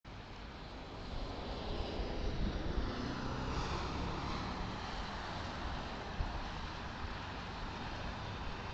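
Steady road and engine noise of a car driving on a highway, picked up by a dashcam microphone, with an oncoming truck passing about two to three seconds in as a swelling whoosh that falls in pitch.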